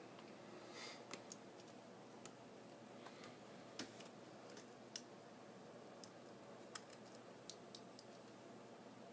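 Faint, irregular small clicks and taps, about a dozen, over a low steady hiss: small tools and parts handled while taking apart an iPhone 4.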